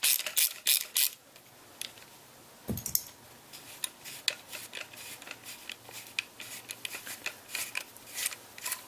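A 1/4-inch drive socket ratchet clicking, about three clicks a second for the first second, as it backs out the Allen screw that holds the AR-15's safety selector. A single dull thump follows near three seconds in, then scattered light clicks and rubbing of small metal parts being handled.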